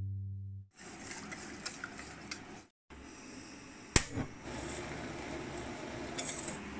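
The last note of the intro music dies away at the start. Then comes the steady hiss of a lit gas stove burner under a pan, with light clicks over it and one sharp click about four seconds in.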